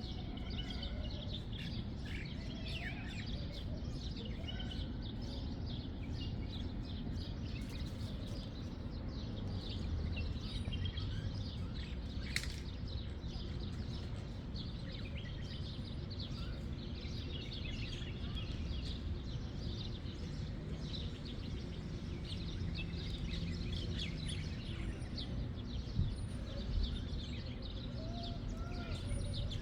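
Many small birds chirping and twittering continuously, over a steady low rumble of background noise.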